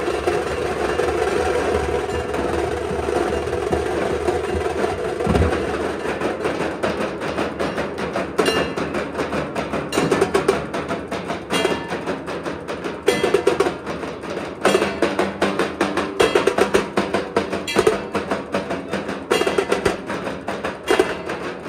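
Procession drum band of large stick-beaten dhol drums with cymbals, playing a fast, driving rhythm. After a fuller, more blended stretch, rapid sharp drum strokes take over about eight seconds in and grow louder.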